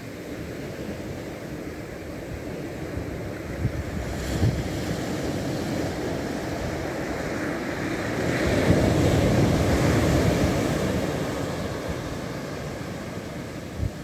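Surf from a long-period ocean swell on a sandy beach: the sound builds to a breaking wave about eight seconds in, then washes up the sand and slowly fades.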